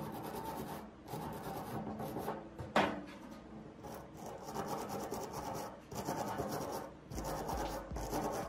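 Steel wire brush scrubbing rust off the metal end of an old bicycle pump's plunger rod, rasping in runs of strokes with brief pauses, and one sharp knock about three seconds in.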